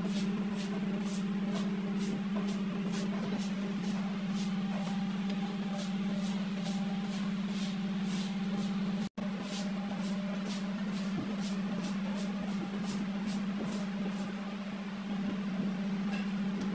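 A steady electric motor hum, with faint rapid ticking about three times a second and light handling noises.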